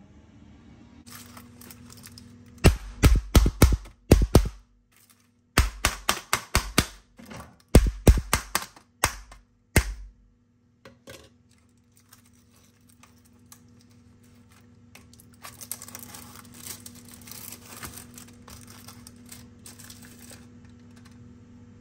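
Plastic film lids on ready-meal trays being stabbed through again and again: sharp pops in three quick runs of about half a dozen each. Later, softer crinkling of plastic packaging as the trays are handled, over a low steady hum.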